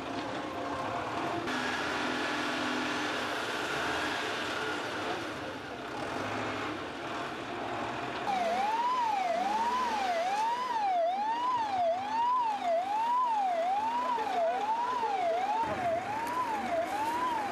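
An ambulance siren starts about halfway through: a loud wail sweeping up and down a little over once a second. Before it there is a steady mix of engine noise and voices.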